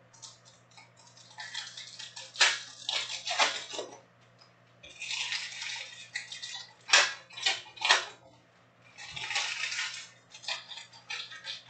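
Topps Chrome trading-card pack wrappers crinkling and tearing open in repeated bursts with sharp crackles, as the cards are slid out of the packs.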